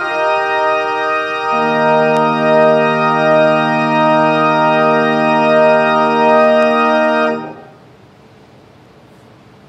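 Church organ playing sustained chords, with a low bass note joining about a second and a half in. The held final chord cuts off about seven and a half seconds in, leaving faint room tone.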